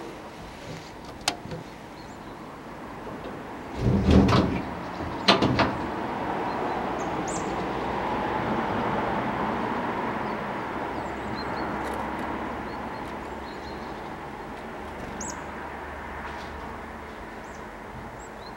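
Two heavy thumps about four and five seconds in, then a broad rumble that swells and slowly fades over about ten seconds, like a vehicle passing in the street.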